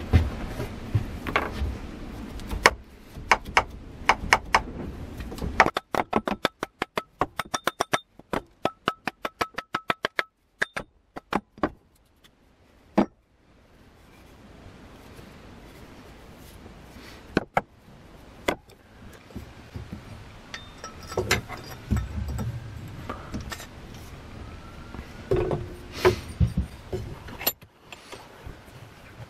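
Hammer blows on steel as the old wooden handle is driven out of a rusty axe head: a quick, even run of ringing strikes, with scattered knocks and clatter of tools and metal on the workbench before and after.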